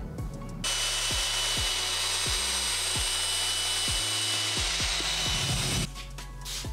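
Handheld drill spinning a mixing paddle through a bucket of loose modified thinset mortar: a steady motor whine over the churn of the mix. It starts about half a second in and stops abruptly about a second before the end. This is the quick second mix after the thinset has slaked.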